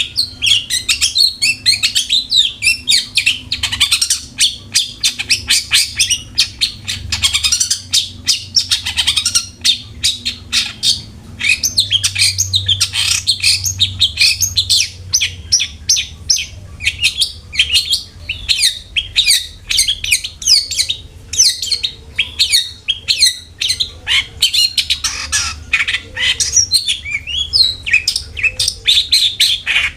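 Long-tailed shrike (cendet) singing without a break: a fast, dense stream of short, sharp chirps mixed with harsh squawking notes, several a second.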